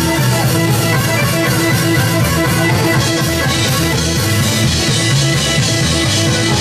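Live band playing Serbian kolo dance music on accordion, electric guitar and drum kit, over a steady beat.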